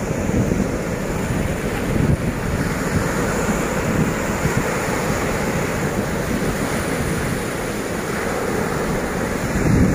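Sea surf breaking and washing up a sandy beach, a steady rushing wash, with wind buffeting the microphone.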